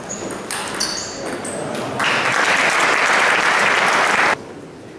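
A few table tennis ball pings over hall chatter, then the audience in a sports hall applauds loudly from about two seconds in; the applause cuts off suddenly near the end.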